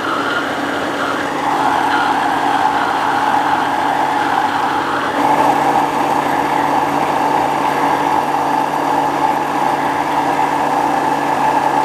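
Electric blender motor running steadily at full speed, whirling a thick liquid mix of mango pulp, cream and condensed milk in its glass jug. The tone shifts slightly about five seconds in.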